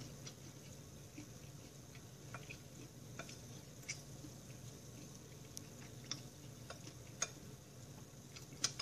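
Quiet eating sounds: chewing a mouthful of fried black rice with nuts while a spoon works in a ceramic bowl, heard as scattered small clicks. The sharpest click comes near the end.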